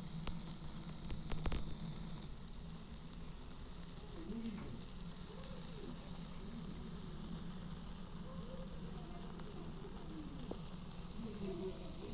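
Food sizzling on a barbecue grill: a steady hiss with a few sharp pops in the first couple of seconds. Faint wavering sounds come in behind it from about four seconds in.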